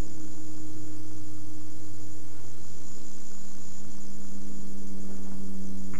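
Steady electrical hum made of several low, unchanging tones, with a faint hiss over it.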